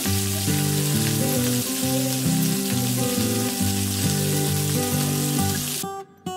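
Chicken drumsticks sizzling steadily in hot oil in a stainless steel frying pan as they pan-fry to brown, with background music playing underneath. The sizzle cuts off suddenly near the end.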